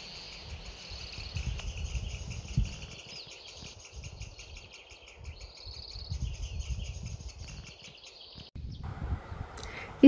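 Outdoor lakeside ambience: gusty wind rumbling on the microphone, with birds calling in short high trills about a second in and again near six seconds, over faint chirping.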